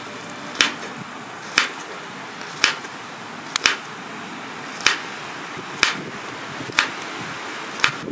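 Sharp chopping knocks, about one a second, eight in all, one of them doubled about halfway through, over a steady background hiss.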